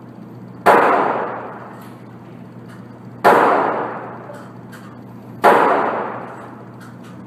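Three rifle shots about two and a half seconds apart, each followed by a long echo off the walls of an indoor range. They come from a .303 British Lee-Enfield No.4 Mk 2 bolt-action rifle fired in quick succession.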